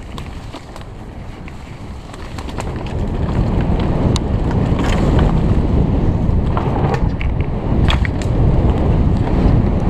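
Wind rushing over a helmet-mounted camera on a mountain bike descending a forest trail, mixed with the tyres running over leaf litter and the bike rattling in sharp clicks and knocks. The rush gets louder about three seconds in as the bike speeds up.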